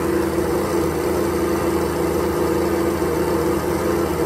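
Kawasaki 1100 STX DI jet ski's three-cylinder two-stroke direct-injection engine running steadily at idle on its first start after a stator replacement. The idle is a little high, which the owner puts down to the throttle setting.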